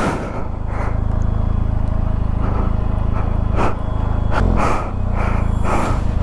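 Benelli TRK 502X's parallel-twin engine running steadily at low revs while the bike sits stuck on a loose dirt climb, with a short blip a little past halfway. Repeated short hissing puffs sound over the engine.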